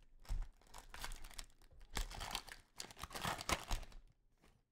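Plastic trading-card pack wrapper crinkling as it is handled, in a run of short rustles that stop about four seconds in.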